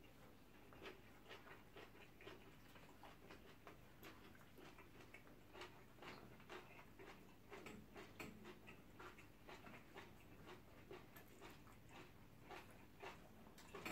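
Faint eating sounds: irregular soft clicks and smacks, several a second, from people chewing and eating a meal of stew and rice.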